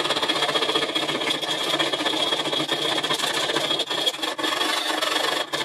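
Small round file rasping rapidly back and forth around the edge of a drilled hole in a metal panel, deburring it. The quick strokes run continuously, then stop abruptly near the end.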